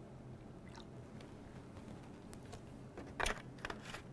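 Plastic gallon milk jug being handled and capped: low for the first few seconds, then two short crinkling knocks of the plastic near the end.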